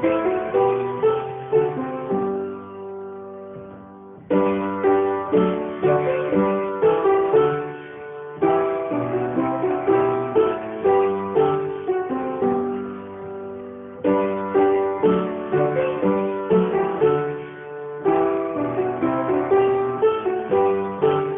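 Instrumental music: a melody of struck or plucked notes that each ring and fade, played in phrases a few seconds long.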